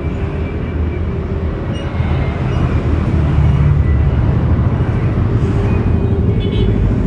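Steady low rumble of motor-vehicle noise, growing a little louder about two to three seconds in.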